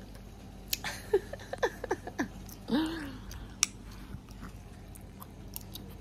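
A newborn baby's small high-pitched coos and squeaks with wet mouth clicks and lip smacks, and one short, lower hum about three seconds in.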